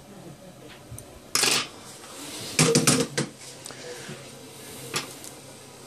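Small metal hand tools clinking and clattering on a workbench: a short clatter about a second and a half in, a quick run of clicks and rattles around three seconds in, and one click near the end, as tweezers and a metal board holder are handled.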